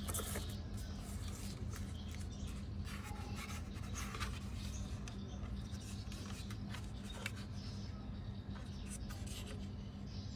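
Plastic case of a TP-Link wireless router rubbing, scraping and clicking in the hands as it is handled and turned over, with a steady low hum underneath.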